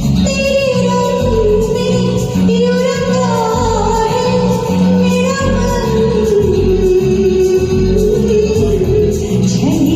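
Karaoke singing of a Hindi film song: one voice holds long, gliding notes that drift slowly down in pitch, over a recorded backing track with a steady beat.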